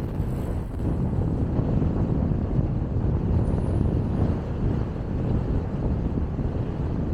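Car on the move: a steady low rumble of road and engine noise.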